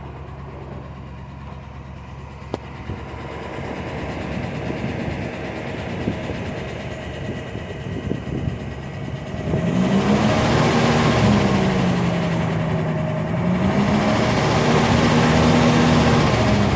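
Chevy engine idling with a light, regular tick, which the owner is unsure is a typical Chevy tick or a lifter tick. About ten seconds in the engine gets louder and its pitch rises and falls slowly twice.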